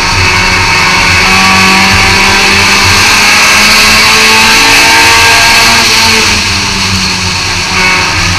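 Thunder-class race car engine running hard under race load, heard from inside the car. Its pitch rises and falls as the driver lifts and gets back on the throttle, with a brief drop in loudness near the end.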